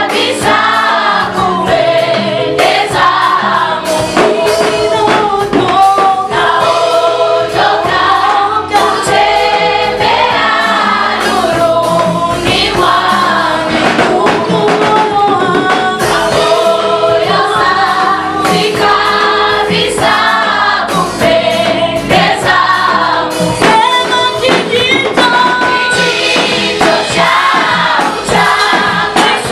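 Choir singing a gospel hymn in several voice parts, with light instrumental backing.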